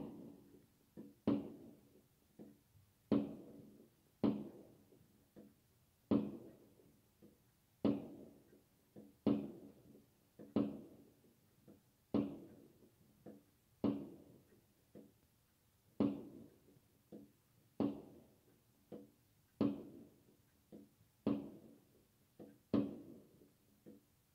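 Aerial fireworks bursting in a steady string of bangs, a louder one every second and a half or so with fainter ones between, each trailing off in an echo.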